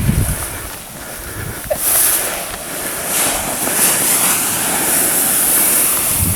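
A sled hissing steadily as it slides down a snowy hill, the sound building about two seconds in, with wind buffeting the microphone.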